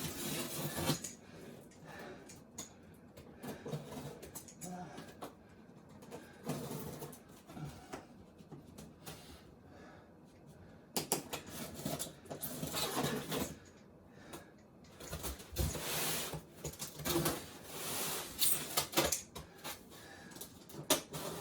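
Large cardboard shipping boxes being handled and pulled apart: irregular rustling, scraping and small knocks of cardboard and packing material, in bursts with quieter gaps between.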